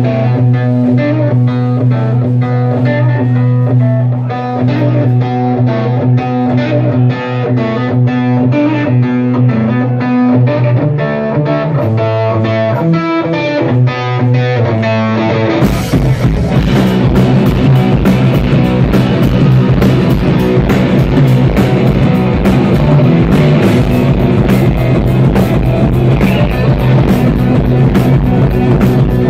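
Live rock band: an electric guitar plays a repeating picked riff over a held low note, then about halfway through the drums and the rest of the band come in together and the sound becomes loud and full.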